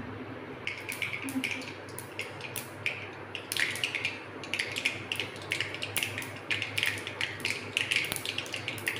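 Mustard seeds crackling and popping in hot oil in a steel kadhai: scattered sharp pops start about a second in and come thicker and louder toward the end, the sign that the oil is hot enough for the tempering.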